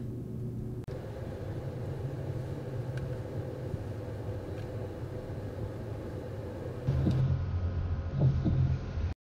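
Steady low rumble and hum that grows louder about seven seconds in, then cuts off abruptly near the end.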